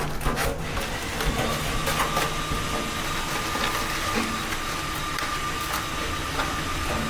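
A small motor running steadily with a thin, high whine that sets in about a second in, with scattered clicks and knocks over it.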